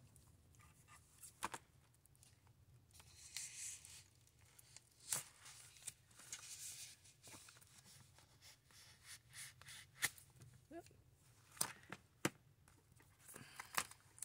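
Plastic packaging of a sticker pad being cut and pulled open with scissors: faint crinkling and tearing rustles with a few sharp snips.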